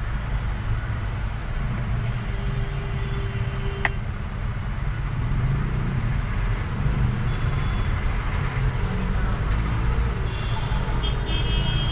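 Steady low rumble of background road traffic, with a faint short hum about two seconds in and a single sharp click about four seconds in.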